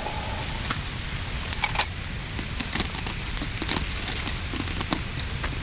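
Wood fire crackling, with irregular sharp pops over a steady hiss.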